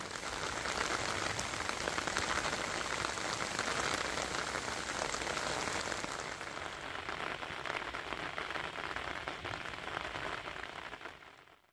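Steady rain falling, a dense patter of drops that swells in over the first second and fades out near the end.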